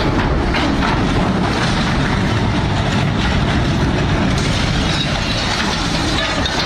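Loud, steady rumbling noise of a heavy vehicle running.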